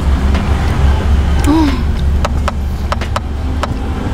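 Eating sounds: a metal spoon clicking and scraping against a plastic tray of fruit salad several times, over a steady low rumble, with one brief voiced hum about a second and a half in.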